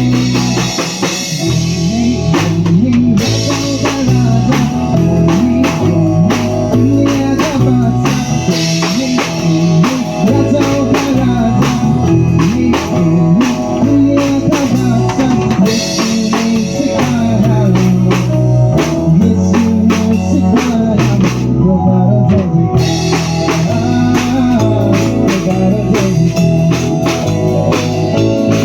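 A band playing with a drum kit keeping a steady beat over bass and guitar, without vocals.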